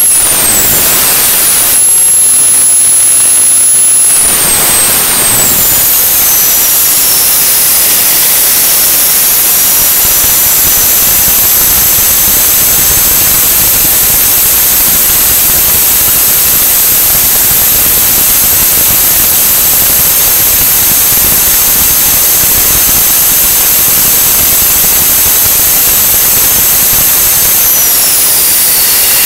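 Homemade jet engine running loud and steady with its afterburner unlit: a rushing exhaust noise with a high turbine whine. The whine dips briefly at the start, slides down in pitch about five seconds in, holds steady, and slides down again near the end.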